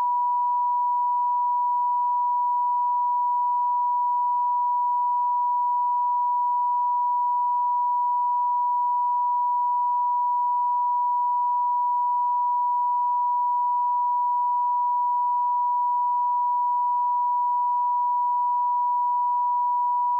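A pure 975 Hz sine-wave test tone, held at one pitch and one steady level without a break.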